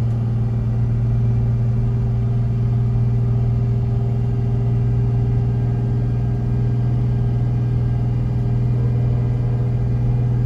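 Diesel engine of a Jayco Seneca Super C motorhome (Freightliner chassis) heard from inside the cab: a steady low drone, held in second gear on a long downhill grade to keep speed down without braking.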